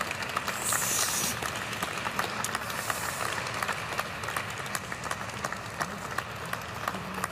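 Audience applauding steadily, a dense patter of many hands clapping, with a brief high hiss about a second in.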